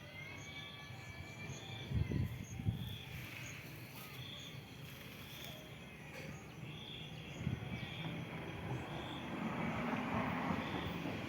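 Outdoor ambience with an insect chirping in short, evenly spaced high chirps about once a second. Low rumbling noises stand out about two seconds in and again past the middle, and the background noise grows louder toward the end.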